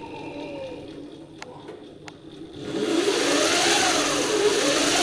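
MY1020 brushless electric motor driving a chain, spun up by taps on the throttle: about two and a half seconds in, a loud whir starts and its whine rises and falls twice. Before that, a low steady hum and two light clicks.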